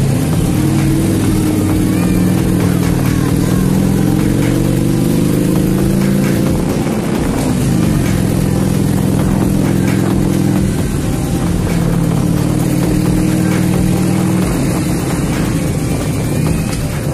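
Motorcycle engine running as the bike rides along. Its pitch climbs a few seconds in, drops and picks up again about seven seconds in, then holds steady.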